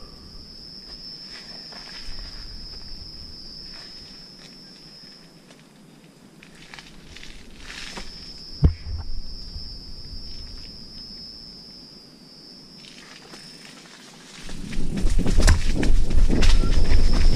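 Mountain bike rolling along a wet dirt singletrack under a steady high-pitched insect drone that breaks off and resumes twice. There is a sharp click about nine seconds in. From about fourteen seconds in, the bike's rumble over rough ground grows loud.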